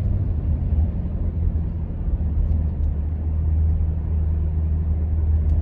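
Steady low rumble of a car driving along a city street, its engine and tyre noise heard from inside the cabin.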